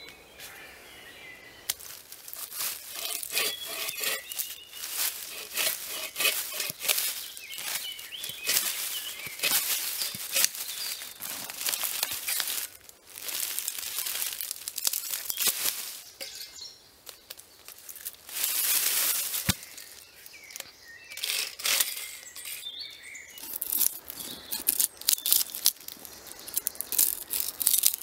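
Hand work on green logs: a bow saw rasping through a log in irregular strokes, and near the end a knife cutting into wood. Birds chirp now and then.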